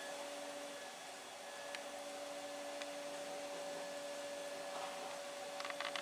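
Steady low hum of a small electric motor running.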